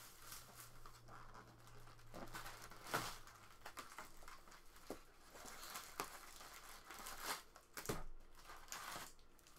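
Soft crinkling and tearing of plastic shrink wrap as a trading card box is unwrapped and its cardboard lid opened, then foil card packs rustling and clicking as they are lifted out of the box.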